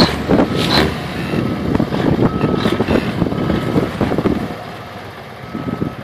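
Heavy V-plow truck's engine working under load as it pushes through deep snowbanks, with snow churning against the blade, easing off near the end. A faint beep recurs every second or so, like a reversing alarm, and wind buffets the microphone.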